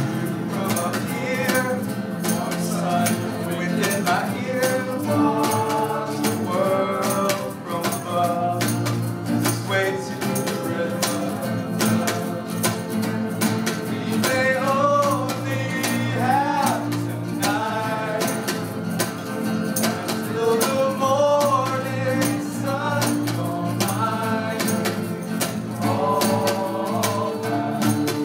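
A group of acoustic guitars strummed together in a steady, quick rhythm, with several male voices singing the melody over them.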